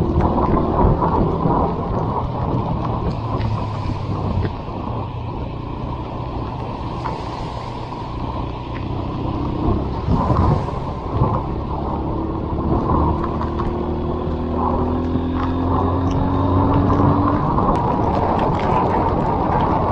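Honda CB190R's single-cylinder engine running while riding, with a muffled wash of wind and road noise. The engine pitch rises slowly a few times as the bike speeds up.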